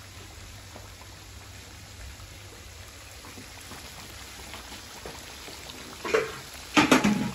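Mutton and tomatoes simmering in oil and juices in a wok over a gas flame, a steady faint bubbling and crackle. Near the end come two loud, sudden knocks a little under a second apart.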